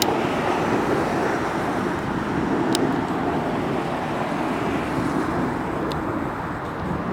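Steady roar of jet airliner engines, a rough even noise with no clear pitch, broken by a few faint clicks.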